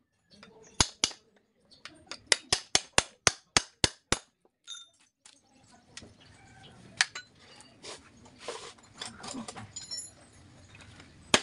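Hammer striking a steel punch to drive the old rivets out of a truck brake shoe: a quick run of sharp metallic strikes, about four a second, over the first few seconds. After that comes scraping and clattering of metal against the shoe, with a few more single strikes.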